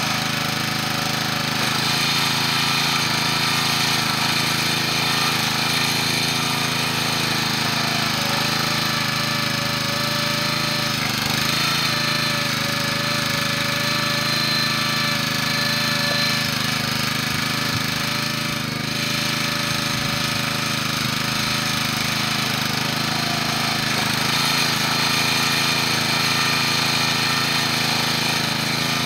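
Small gasoline engine of a towable hydraulic log splitter running steadily while firewood is split.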